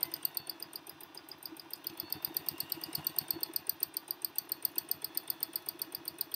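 Electric home sewing machine stitching fast through a quilt sandwich during free-motion quilting: a rapid, even ticking of the needle at about ten stitches a second, easing for a moment about a second in before picking up again.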